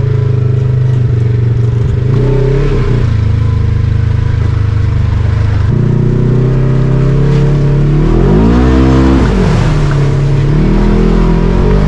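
Polaris RZR 1000 four-seat UTV's parallel-twin engine running as it drives a dirt trail, heard from the cab. Its note shifts suddenly about six seconds in, then rises and falls in a short rev shortly after eight seconds.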